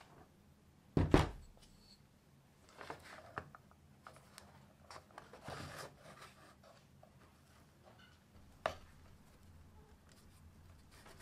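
Objects being set down and handled on a wooden workbench: a heavy thump about a second in, then lighter knocks, rubbing and rustling, and one more sharp knock later on.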